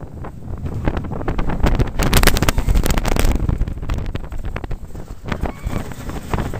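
Wind buffeting the microphone of a camera held on the Pepsi Max Big One roller coaster, with scattered clicks and knocks from the ride. A heavy gust of wind noise comes about two seconds in and eases off after about a second.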